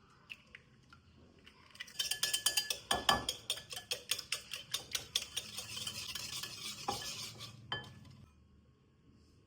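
A utensil stirring or beating quickly in a bowl, with rapid clinks against the sides, starting about two seconds in and stopping about eight seconds in, with a couple of duller knocks along the way.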